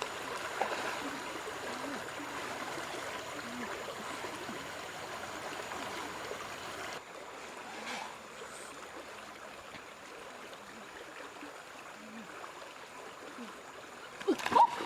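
River water flowing steadily, with a small abrupt drop in level about seven seconds in. Splashing starts just before the end.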